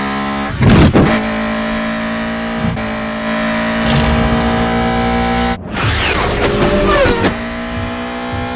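Mitsubishi Lancer Evolution VII's engine from the film's sound-effects track, running hard at high revs under acceleration with its pitch climbing slowly. There is a loud whoosh about a second in and a brief break about five and a half seconds in, after which the engine note carries on rising.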